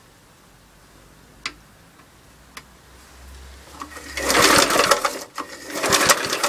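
1971 Briggs & Stratton 2 hp engine being pull-started from cold: two pulls on the recoil starter, each about a second long, with the engine cranking over on each pull. A few faint clicks come before the first pull.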